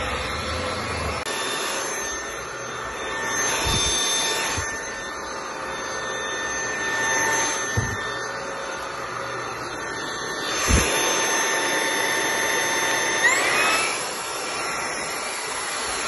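INSE V120 cordless stick vacuum running steadily: a motor whine over rushing air as the floor head is pushed across hard floor and carpet tiles. A few low knocks sound along the way, and about thirteen seconds in the whine rises in pitch.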